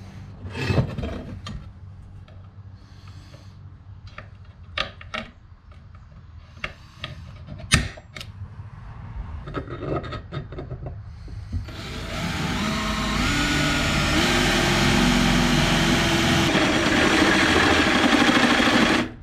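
Knocks and clicks of a steel bar and tools being handled on a wooden workbench, then, about twelve seconds in, a power drill starts up and runs steadily, boring a hole through the flat steel bar. Its pitch rises in steps as it gets up to speed.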